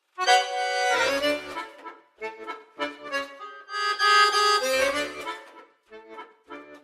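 Accordion playing the instrumental opening of a song: short detached chords, with a loud held chord just after the start and another about four seconds in.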